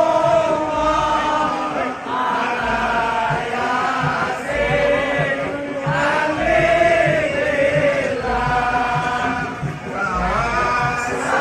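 A group of men chanting sholawat, the Islamic devotional song, with a light regular beat under the voices.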